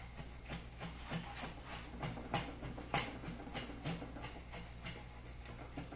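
Homemade wooden router plane cutting a wooden block in quick short strokes, each a brief sharp scrape as the blade takes off shavings, about three strokes a second, with one sharper stroke about three seconds in.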